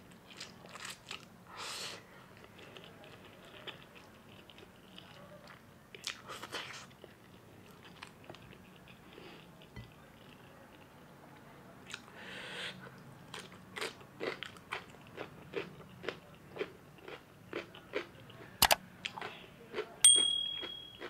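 A person slurping and chewing spicy ramen noodles: a few long slurps in the first half, then steady wet chewing smacks about two a second. Near the end a sharp click and an electronic ding that holds for about a second, the sound effect of a subscribe-button animation.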